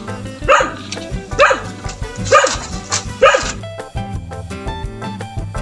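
A dog barking repeatedly, about six sharp barks in quick succession that stop a little past halfway, over background music with a steady beat.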